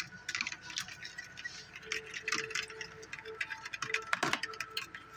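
Fork beating eggs in a dish for an egg wash: a rapid, irregular run of light clicks and taps of metal against the dish.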